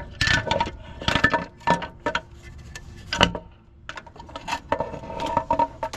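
Metal parts and tools clinking and clattering in a string of sharp knocks, some ringing briefly, with the loudest about three seconds in.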